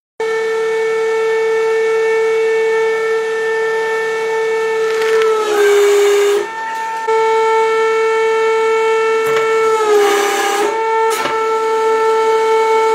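Hydraulic press pump whining steadily, its pitch sagging twice under load as the ram crushes food, each sag with a burst of crunching and cracking; a few sharp cracks follow the second.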